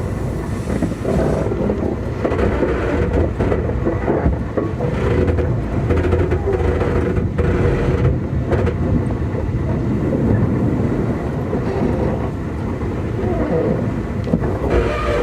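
Interior running sound of a Keikyu 2000 series electric multiple unit car, DeHa 2052: steady wheel-and-rail noise with an underlying hum, the train moving at low speed in rush-hour traffic.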